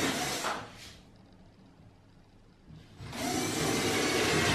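Cordless drill-driver running under load as it drives screws into a plywood board. The first burst stops about half a second in, and a second starts about three seconds in.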